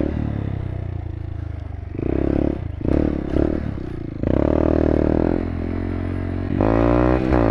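Motorcycle engine blipping the throttle in short bursts at low speed, then running more steadily and revving up with rising pitch near the end.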